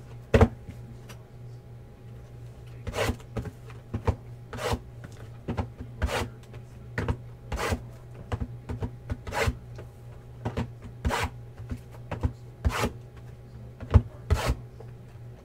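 Sealed trading-card boxes being slid, lifted and set down on a table, a string of short cardboard scrapes and knocks about one or two a second, over a steady low hum.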